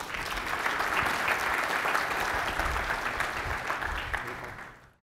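Audience applauding, a dense patter of many hands clapping that tapers off and is cut off abruptly near the end.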